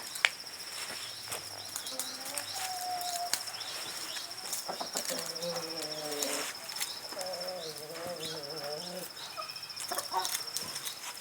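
Free-range chickens feeding: hens give several soft, drawn-out wavering calls, with scattered light clicks, over a steady high-pitched insect trill.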